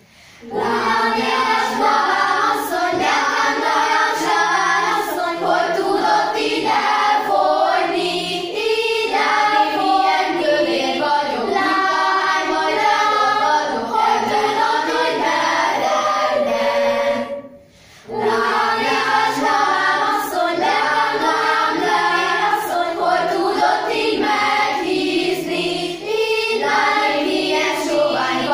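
Youth choir of schoolgirls singing together. The singing stops briefly about two-thirds of the way through, then the next phrase begins.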